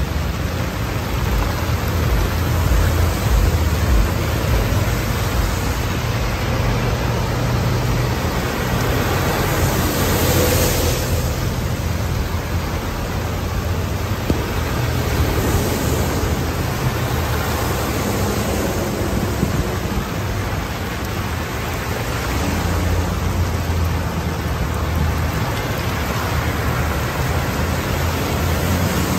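Heavy rain pouring steadily, with cars driving through floodwater and throwing up spray that swells the hiss now and then, over a continuous low rumble.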